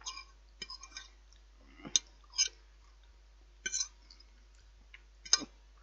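Someone eating off a plate with a fork: a few short, separate clicks and smacks from the fork on the plate and from chewing, with quiet in between.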